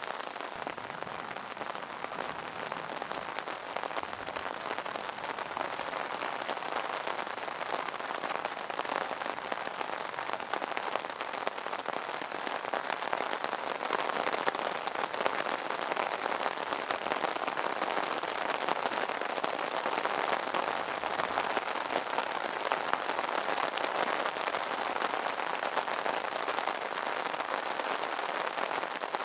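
Steady rain pattering on an umbrella canopy: a dense, even patter of drops with many small individual taps.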